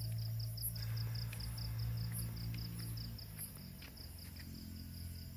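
Night insects, crickets, chirping in a steady rapid pulse of about five or six chirps a second, with a higher, sparser chirp repeating every second or so, over a low steady hum.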